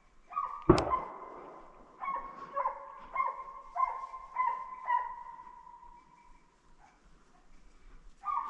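Hunting dogs baying on the track of a wild boar: a run of about six barks roughly every half second, each with a long ringing tail. A single sharp loud crack comes about a second in.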